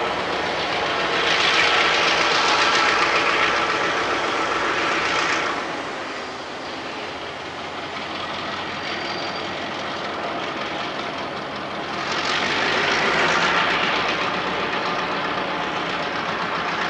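EMD FP9 and GP7 diesel locomotives hauling a train of autorack cars past at close range: engines running and wheels rolling on the rails as a steady rumbling noise. It swells louder about a second in and again about twelve seconds in.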